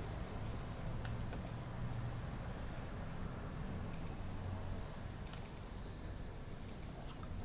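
Faint, irregular light clicks, about ten of them scattered through the pause, over a steady low hum.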